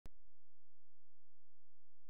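A click right at the start, then a steady low hum.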